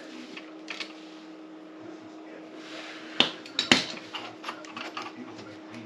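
Sharp clicks and small knocks of hand tools and small parts being handled, with two louder snaps a little past the middle, over a steady low hum.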